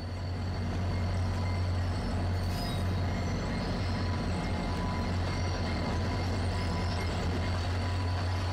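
A pair of VIA Rail F40PH-2 diesel locomotives running as they pull the train slowly out of the station: a steady low engine drone from their EMD two-stroke V16 diesels.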